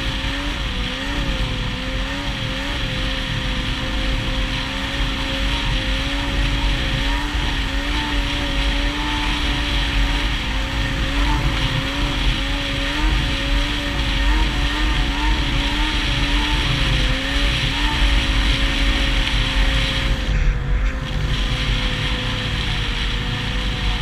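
Yamaha SX Viper snowmobile's 700 triple two-stroke engine running at a steady cruising speed, its pitch wavering slightly with the throttle, under constant wind noise.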